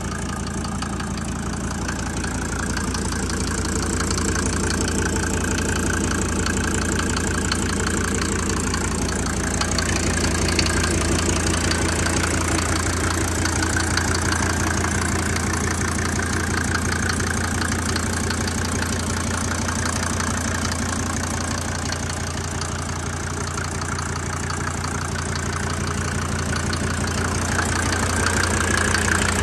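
Mercedes-Benz 300D turbo diesel engine idling steadily, with the even, rapid clatter of a diesel at idle.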